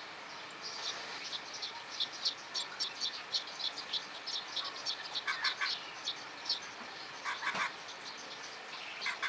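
Small bird chirping in quick, high, short calls, a few a second, with a couple of lower, fuller chirp bursts about five and seven and a half seconds in.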